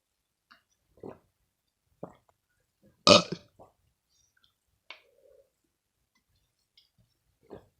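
A person burping, a series of short separate burps about a second apart, with one loud, longer burp about three seconds in.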